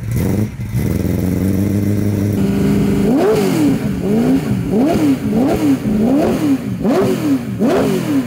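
Ford GT40's V8 idling, then from about three seconds in blipped over and over, the revs rising and dropping sharply in quick succession.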